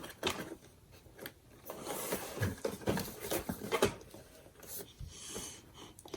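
Handling a cardboard toy box: scattered taps, scrapes and rustles, busiest in the middle, with a short sliding hiss near the end.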